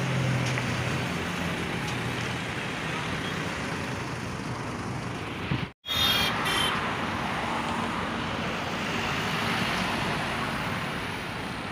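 Road traffic noise: a coach's engine running at a bus stop, then, after an abrupt cut about six seconds in, a steady rush of cars and trucks passing on a highway.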